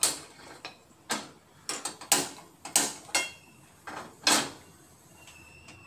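A series of sharp clicks and knocks as a kitchen stove is switched on and an empty pan is handled on it, followed near the end by a faint steady high-pitched tone.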